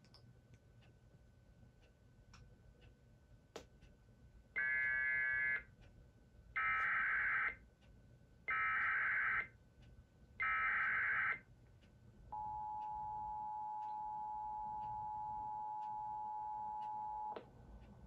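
Emergency Alert System alert tones: four buzzy data bursts of about a second each, spaced about two seconds apart (the SAME header), then the steady two-tone attention signal held for about five seconds. A faint steady high tone sits underneath throughout.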